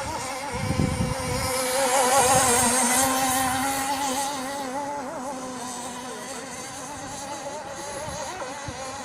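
Radio-controlled model boat running on the water, its motor a steady, slightly wavering whine. It grows louder with a hissing wash from about two seconds in, then fades.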